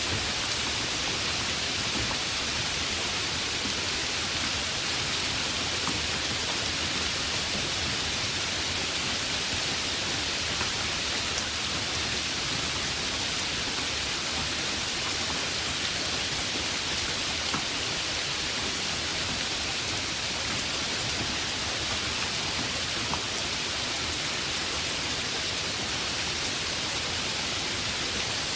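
Heavy rain falling steadily, a dense even hiss with faint individual drops ticking through it.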